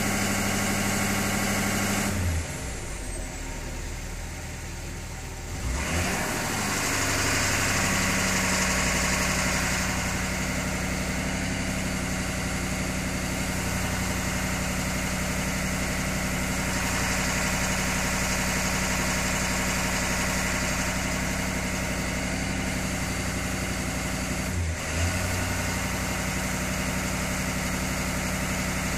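Ford 6.7 Power Stroke V8 turbo diesel running at a computer-controlled idle during its engine-running self-test. About two seconds in, its note drops and quietens for a few seconds, then builds back up to a steady run as the test steps through, with a brief dip near the end.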